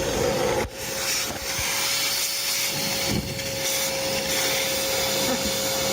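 Shop vac running with a steady whine and hiss as it sucks up oil from the engine, dipping briefly under a second in.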